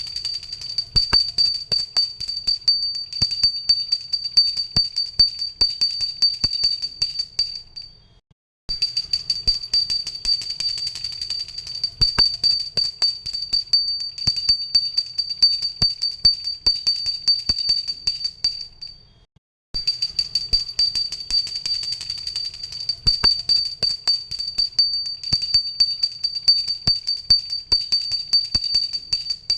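Pooja bell rung continuously, its clapper striking rapidly over a steady high ring. The ringing fades out and stops briefly twice, about 8 and 19 seconds in.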